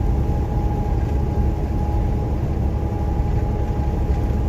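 Steady engine and road noise inside a semi-truck cab driving on a wet highway, the Detroit diesel running steadily under rumbling tyres, with a faint steady whine above it.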